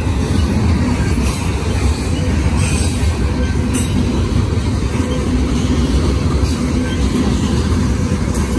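Freight train cars rolling past: a steady, loud rumble of steel wheels on rail, with a few sharp clicks from the wheels over the track.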